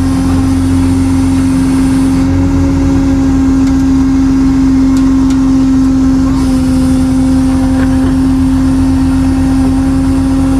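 Tow truck engine running steadily, with a constant hum over a low rhythmic rumble.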